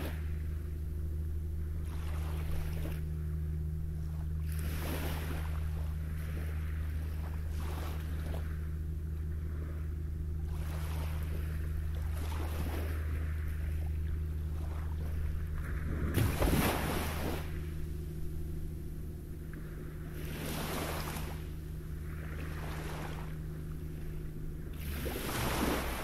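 Small sea waves breaking and washing up over a pebble beach, one wash every few seconds, the biggest about sixteen seconds in and another just before the end. A steady low hum runs underneath.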